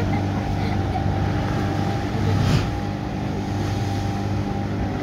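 Small motorboat's engine running steadily, a constant low drone as the boat moves along. A brief louder rush of noise comes about halfway through.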